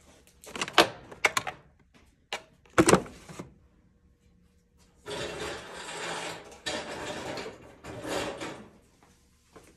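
Handling noise among workshop shelves: a few sharp clicks and knocks of hard objects in the first three seconds, then about four seconds of scraping or rustling in three spells.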